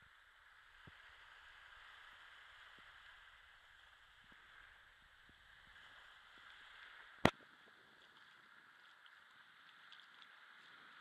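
Faint, steady wash of small waves lapping on a sandy shore, with one sharp click about seven seconds in.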